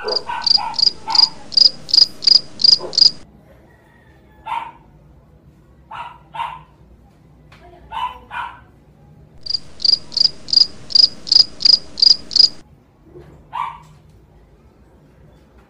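Cricket chirping, a steady run of about three high chirps a second, which starts and stops abruptly twice and lasts about three seconds each time. In between, a dog gives a few short yips.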